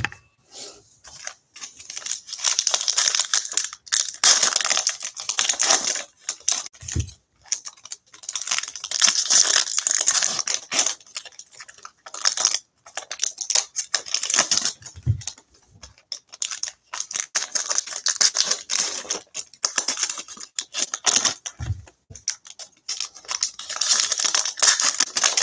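Foil trading-card packs being torn open and their wrappers crinkled, in repeated rustling spells of a few seconds each, with cards slid and handled between them. Three soft thuds as cards or packs are set down on the table.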